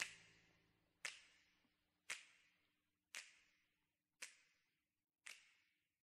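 Finger snaps with a reverb tail, six of them about a second apart and each a little quieter, as a song recording fades out; a low held note dies away in the first second.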